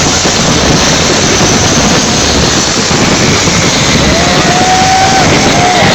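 Loud, continuous din of a fireworks display, a dense mix of bangs, crackle and crowd noise, with a couple of short whistles near the end.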